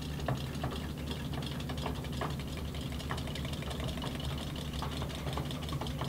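Hexbug Aquabot robotic fish running in a water tank: the small battery motors buzz steadily, with scattered light clicks.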